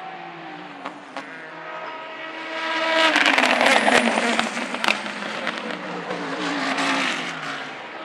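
Gibson V8-engined LMP2 prototypes racing past. One engine note drops away early on. Then a much louder car sweeps by about three seconds in, its pitch falling as it goes away, with a few sharp cracks from the exhaust.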